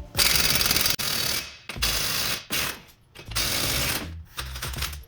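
Impact wrench hammering in about five short bursts, the longest near the start, as the lug nuts on a truck's front wheel are spun off.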